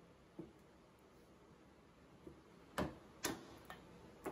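Short, sharp knocks of a wood chisel being struck by hand as it is driven in to pry the handle off a wooden hand plane: two faint taps in the first half, then four sharper knocks in the last second and a half.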